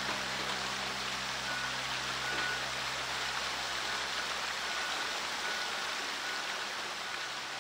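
Water from a tiered fountain pouring and splashing in a steady rush, with faint short beeps repeating from about a second and a half in.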